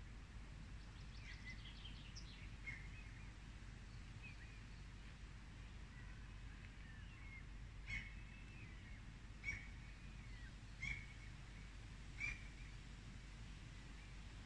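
Faint outdoor ambience of small birds chirping over a steady low rumble: scattered twittering notes about a second in, then four short, sharp chirps about a second and a half apart in the second half.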